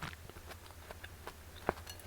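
Scattered soft clicks and ticks of eating watermelon, with one sharper click near the end.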